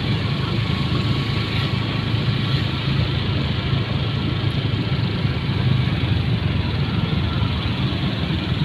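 Small motorcycle engine running steadily at low speed as it is ridden.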